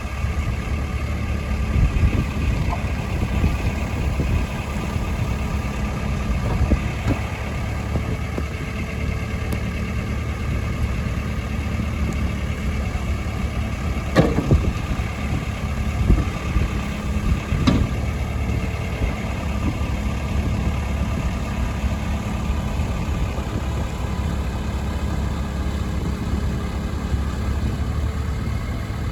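Diesel engine of a JCB 3CX backhoe loader running at a steady idle, with a few sharp knocks about two seconds in and again around the middle.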